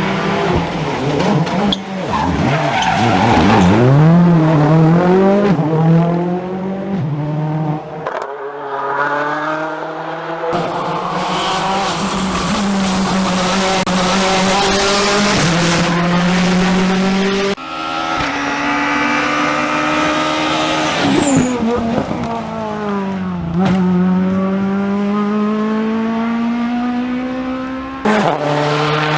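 Rally cars at racing speed, their engines revving hard and rising and falling in pitch through gear changes. The sound cuts abruptly from one car to the next several times.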